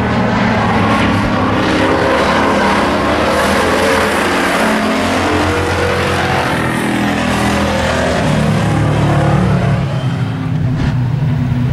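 Hobby stock race cars running hard at full throttle, several loud engine notes overlapping, their pitches shifting as the cars race side by side.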